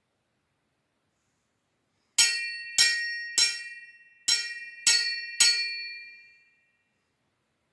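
Metal sai struck six times, in two groups of three, each strike ringing with a clear high metallic tone that dies away over about a second.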